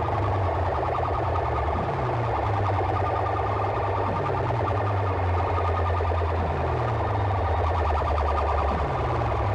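DJ dance track blasted through a rig of horn loudspeakers, with a heavy steady bass and a dense, wailing, siren-like layer above it. A short falling bass sweep repeats about every two and a quarter seconds, four times in all.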